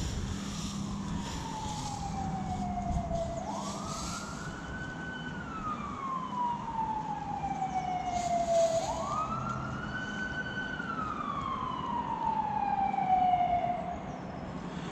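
A siren wailing: twice its pitch rises quickly, holds briefly, then slides slowly back down.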